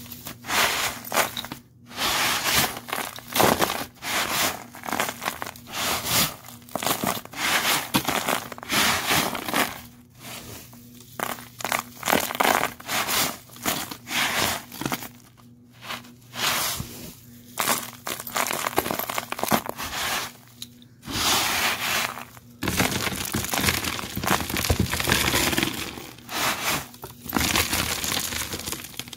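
Dry dirt, paper confetti and small plastic gems crunching and crinkling as the pile is stirred, in irregular bursts with brief pauses between them.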